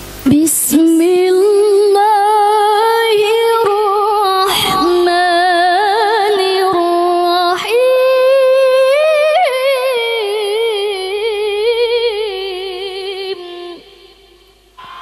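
A woman reciting the Quran in the melodic tilawah style into a microphone. She holds long notes with wavering ornaments, broken by short gaps about half a second, four and a half and seven and a half seconds in. The phrase ends near the end.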